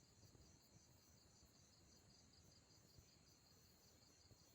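Faint insects chirping in a steady, evenly pulsing trill, over quiet background hiss.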